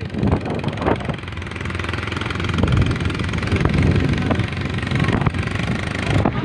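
A motor vehicle engine running steadily at low revs, idling or ticking over, with street noise.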